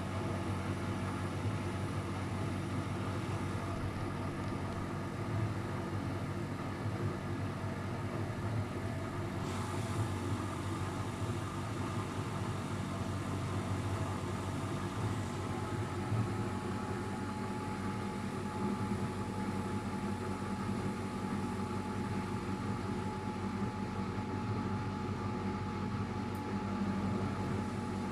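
Luxor WM 1042 washing machine running with a steady motor hum. A thin higher whine joins about halfway through.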